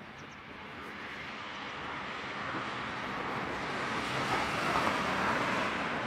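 A vehicle approaching, its steady rushing noise growing gradually louder and loudest near the end.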